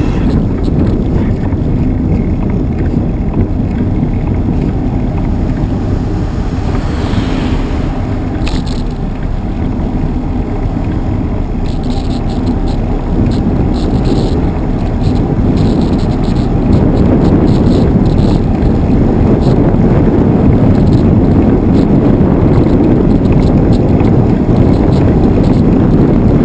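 Steady wind buffeting a cycling camera's microphone, mixed with road and traffic rumble, with a few light clicks and rattles near the middle; it gets somewhat louder about two-thirds of the way through.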